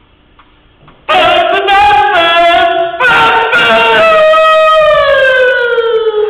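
A person's voice singing without accompaniment: a short phrase, then a long held note that slides slowly down in pitch.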